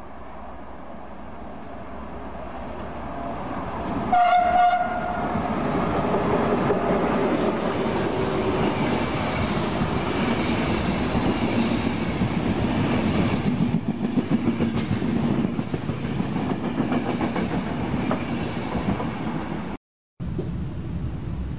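A passenger train in Intercity livery approaches, sounds one short horn blast about four seconds in, then passes close by with its wheels clattering rhythmically over the rails. Near the end the sound cuts to the steady running noise heard inside a moving train.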